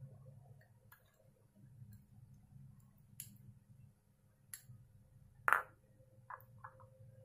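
A plastic toothbrush tapping and clinking against a small glass bowl as it is worked through a thick paste: a few sharp isolated clicks, the loudest about five and a half seconds in, followed by a couple of short scrapes, over a faint low hum.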